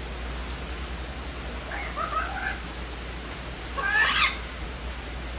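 Steady rain falling, with a young Amazon parrot calling over it: a short call about two seconds in and a louder, rising squawk about four seconds in.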